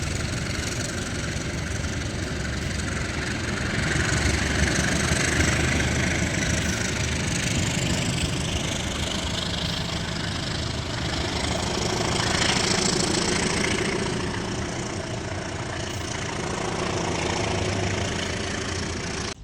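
Diesel train running with a steady low engine hum and a rumble that swells about four seconds in and again around twelve seconds.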